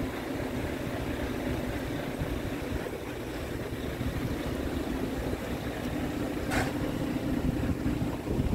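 Scania R truck diesel engine idling steadily, with uneven wind buffeting on the microphone and a short burst of noise about two-thirds of the way through.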